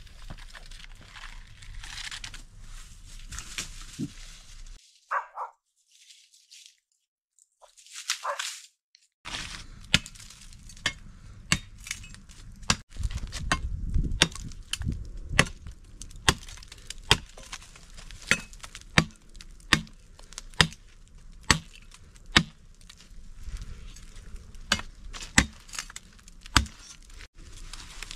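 Rustling steps on dry leaf litter, a nearly silent pause, then a dead wooden branch being chopped: sharp, even chops about once a second that keep going to the end.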